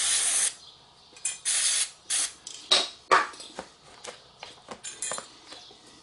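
Aerosol brake cleaner sprayed onto a caliper carrier's slide pin: a half-second hiss at the start and two shorter hisses about one and a half and two seconds in. Then sharp clicks and light knocks as the metal carrier and pin are handled and wiped with a rag.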